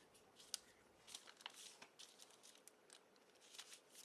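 Near silence with faint, scattered small clicks and brief rustles of small parts being handled on a workbench.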